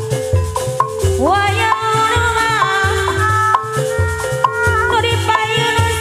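Amplified Sundanese topeng ensemble music: a steady hand-drum beat under a melody line that slides upward in pitch about a second in.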